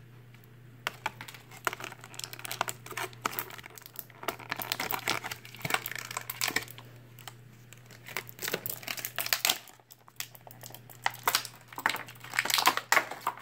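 Clear plastic blister packaging crinkling and crackling in irregular bursts as hands pull small toy parts out of it, with a short lull about ten seconds in and louder crackling near the end.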